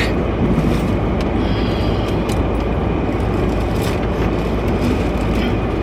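Steady rumble and hiss of a car's interior with the vehicle running, with a few light clicks scattered through it.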